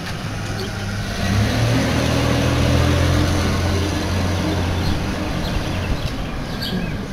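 A motor vehicle's engine: a low, steady hum that swells about a second in, is loudest around three seconds, and fades out about six seconds in.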